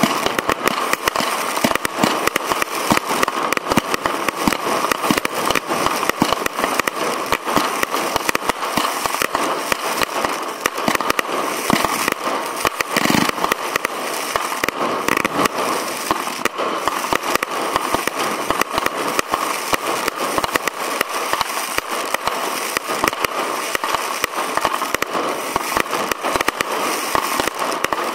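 Professional firework display heard from the firing site: a dense, continuous barrage of shell launches, bursts and crackle, many bangs a second with no pause.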